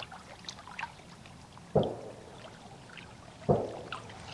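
Two distant gunshots from hunters, each a sudden dull boom with a short fading tail, about a second and three-quarters apart. Faint small ticks and light water sounds lie underneath.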